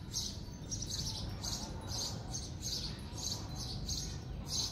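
Small birds chirping repeatedly, about three short high chirps a second, over a steady low background rumble.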